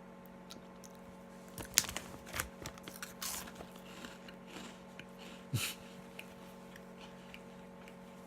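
Someone crunching and chewing Cheetos Puffs: a run of irregular crunches, the loudest about two seconds in and another cluster about five and a half seconds in.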